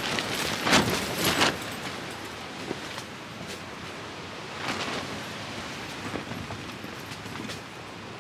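Wind buffeting a tent: a steady rushing noise with strong gusts about a second in and a smaller gust about five seconds in.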